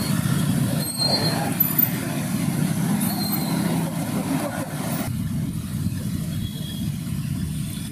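Steady low rumble of vehicles moving along a street, with the higher street noise dropping away about five seconds in.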